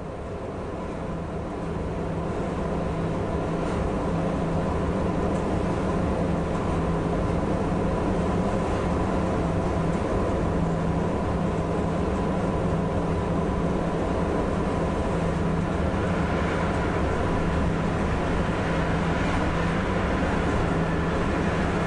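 Cab sound of a DB class 140 (E 40) electric locomotive under way with a freight train: a steady electric hum from its traction equipment over the rumble of wheels on rail, growing louder over the first few seconds. Near the end a passing freight train on the next track adds more rushing noise.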